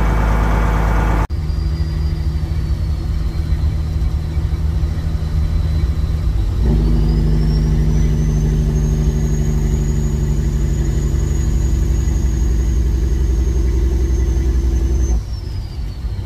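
Kenworth semi's diesel engine heard from inside the cab, pulling a fully loaded trailer. The engine note steps up about six seconds in, and a thin high whine rises with it, holds, and falls away near the end.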